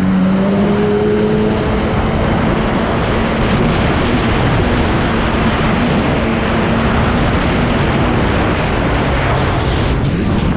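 1998 Sea-Doo GSX jet ski's two-stroke engine held at a steady high note on a top-speed run, under dense rushing spray and wind on the pole-mounted microphone. The engine note drops lower near the end as the throttle comes off.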